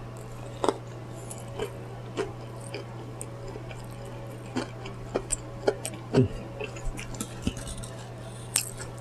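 A person eating a fried chicken meal close to the microphone: scattered wet mouth clicks, chewing and lip smacks, irregular and busier in the second half, over a steady low hum.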